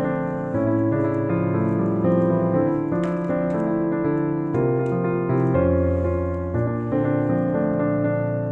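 Piano music: notes and chords played in a steady, unbroken flow.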